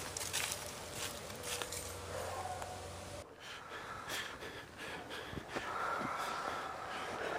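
Actors playing zombies breathing hard and snorting, with footsteps through dry leaves. The sound changes abruptly about three seconds in, and a drawn-out, voice-like groan is held near the end.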